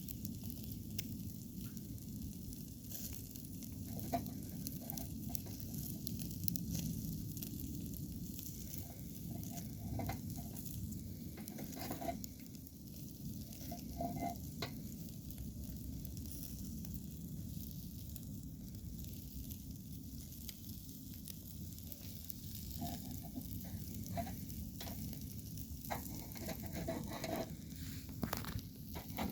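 Chicken sekuwa sizzling as it cooks: a steady sizzle with scattered short clicks and knocks, as of the pieces being stirred or turned.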